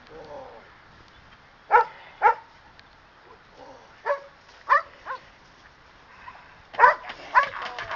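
Black poodle barking at a man with a bite pad during protection training. The barks are loud and short, and come mostly in pairs about half a second apart, with a few fainter barks between them.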